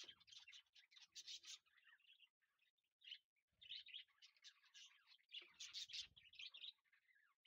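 Faint bird chirping: many quick, high, short calls in rapid runs.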